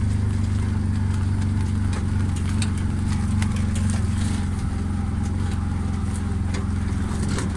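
A vehicle's engine running at a steady pitch, heard from on board, with scattered light clicks and rattles throughout.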